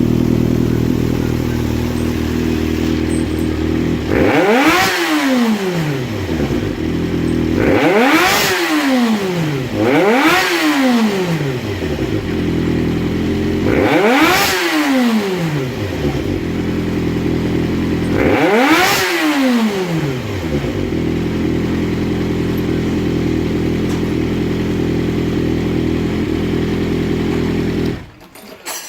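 Honda CBX400F air-cooled inline-four idling steadily, freshly overhauled with rebuilt carburettors, while the throttle is blipped five times, each time the revs shooting up and falling straight back to idle. Near the end the sound cuts out abruptly.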